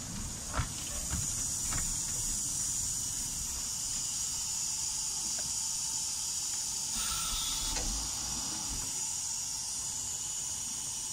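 Narrow-gauge steam locomotive hissing steadily with escaping steam. A few faint clicks come in the first two seconds, and a brief louder rush of steam about seven seconds in.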